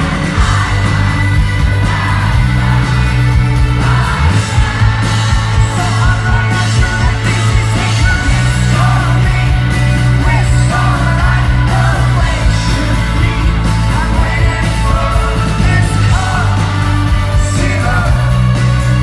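Rock band playing live: loud drums, bass and guitars with a singer's vocal lines over them, going on without a break.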